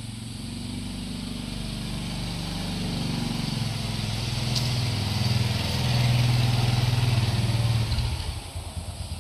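Small motorbike engine running as the bike rides in and draws closer, growing louder, then its note drops to a lower, pulsing idle about a second before the end.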